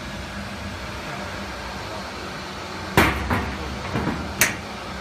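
Steady low workshop hum, then about three seconds in a sharp knock followed by a lighter one, and another sharp clack near the end: the metal door of the CNC router's electrical control cabinet being handled and shut.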